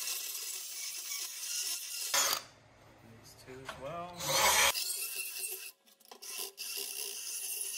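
Cordless drill spinning an abrasive bit inside the cut end of a steel motorcycle frame tube: a steady motor whine with a rasping scrape. It runs in two spells with a pause in the middle.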